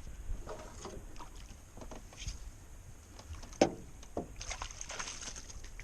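Handling noises in a small fishing boat: scattered light knocks and clicks, with one sharper knock about three and a half seconds in.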